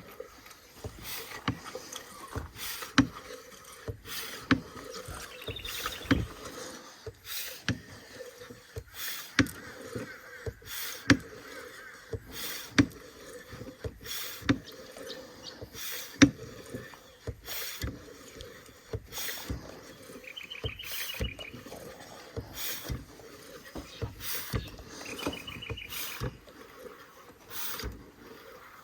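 Small hand oil pump being worked in a steady rhythm, a knock-like stroke about once a second, pumping engine oil into the excavator. A bird trills briefly a few times.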